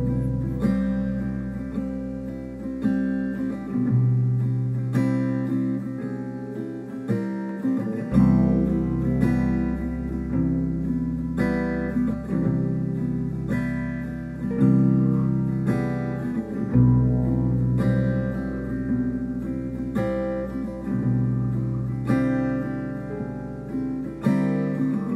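Strummed acoustic guitar playing chords in a steady rhythm, an instrumental passage of a song demo with no singing. A very low sustained note lies underneath and changes about eight seconds in and again past halfway.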